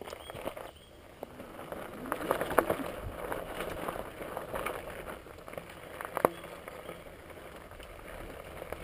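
Hardtail electric mountain bike with a knobby fat tyre rolling over loose gravel and cinders: the tyres crunch and the bike rattles over the bumps. Two sharp knocks come about two and a half and six seconds in.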